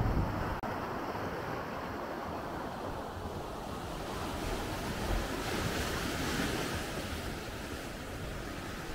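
Sea waves washing onto the beach, one wave swelling and washing up the shore about halfway through, with some wind on the microphone.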